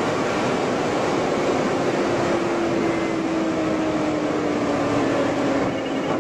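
BMW M5 E60's V10 heard from inside the cabin at very high speed: loud, steady wind and road noise with an engine tone that slowly drifts lower in pitch.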